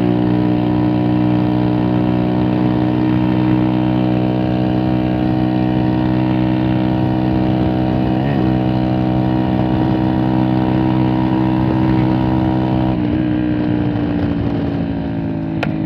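Vehicle engine idling steadily through a newly fitted exhaust, with a brief wobble in the note about eight seconds in and a slight drop in pitch about thirteen seconds in.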